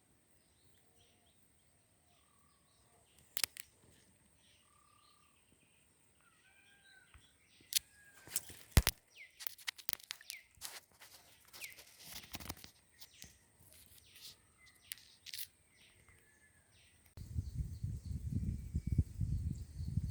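Birds chirping faintly, with a run of sharp clicks in the middle. A low rumbling noise starts near the end.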